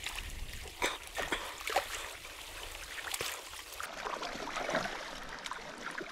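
Shallow river flowing and trickling, with several short splashes in the first few seconds where a hooked king salmon is being netted.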